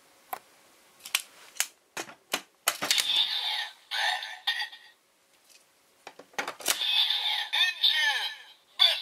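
Plastic clicks of Full Bottles being slotted into a Kamen Rider Build Driver toy. After each insertion the toy's speaker plays an electronic voice announcement and sound effects: once about three seconds in, and again in the second half after another run of clicks.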